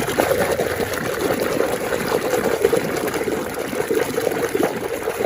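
Running water splashing and trickling steadily over a muddy toy as it is washed clean.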